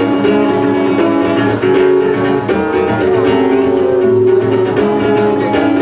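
Acoustic guitar strumming chords, the accompaniment of a song played on its own between sung lines.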